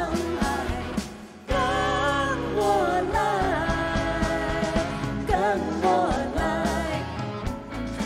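Live pop song: a woman and a young man singing a duet over band accompaniment. The music dips briefly about a second in, then comes back with long held sung notes.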